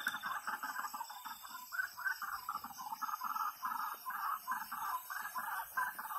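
Night-time chorus of many small animals calling, dense rapid overlapping calls at a middle pitch, with a fainter rhythmic trilling above.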